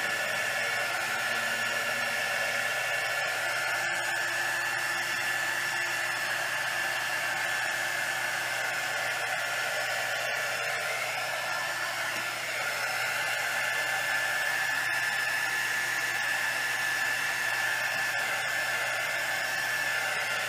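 Small handheld craft heat gun running steadily: a rush of hot air with a steady high whine. It is being used to blow wet resin into wave shapes.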